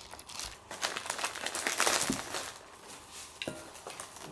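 Irregular crinkling and rustling of plastic packaging being handled during food prep, busiest in the first couple of seconds and then sparser, with a few sharper clicks.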